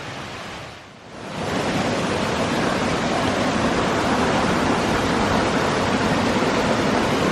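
Mountain stream water rushing steadily, cutting in loud after a brief dip about a second in.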